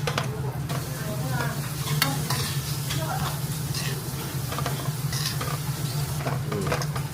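Food sizzling on a tabletop barbecue grill while a metal utensil stirs and scrapes it, with many short scrapes and clinks over the sizzle.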